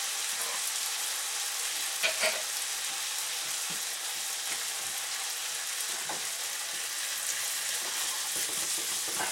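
Frying pan of onion, red pepper and halved boiled eggs in a soy-sauce and vinegar sauce, sizzling steadily over turned-down heat. A couple of light knocks come about two seconds in.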